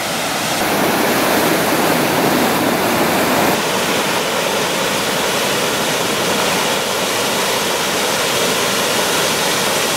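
River water pouring over a rocky ledge into rapids, making a steady, loud rushing noise.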